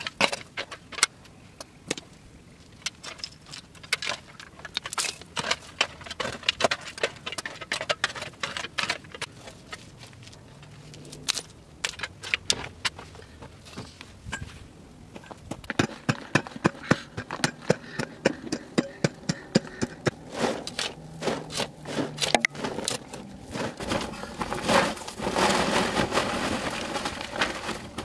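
Small stones and gritty dirt clinking and scraping as they are scooped and shifted by hand, in irregular clicks that grow busier toward the end, with a stretch of steadier scraping near the end.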